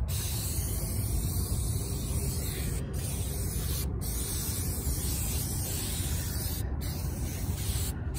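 Aerosol can of tire and rim conditioner spraying onto a truck tire and wheel in a long, steady hiss, with a few brief breaks about three, four and seven seconds in. The can's nozzle cap came damaged and sprays wet instead of misting.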